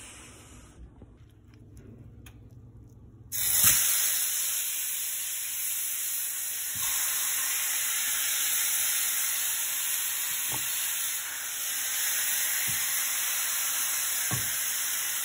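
A ribeye steak sizzling in a hot pan of beef tallow. The sizzle starts suddenly and loudly about three seconds in as the steak hits the fat, then runs on steady, with a few light knocks.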